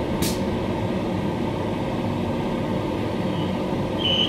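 Queensland Rail electric multiple unit carriage running, heard from inside: a steady rumble of wheels and electric traction with a faint hum. There is a brief hiss about a quarter second in and a thin high tone near the end.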